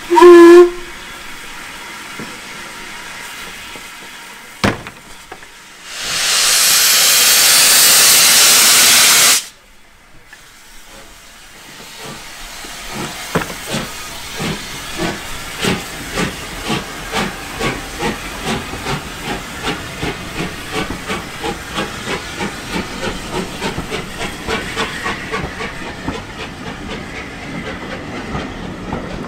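A steam locomotive's whistle gives one short, deep blast. A few seconds later a loud hiss of steam lasts about three and a half seconds and cuts off sharply; then the train pulls out with a regular rhythmic beat that slowly quickens as its coaches roll past.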